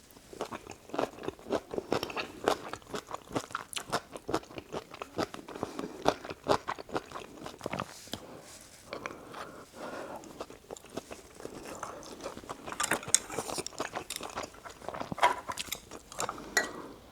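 Close-miked chewing and biting of spicy Korean dakgalbi (stir-fried chicken) with rice: a run of short mouth clicks and smacks, busiest in the first few seconds and again near the end.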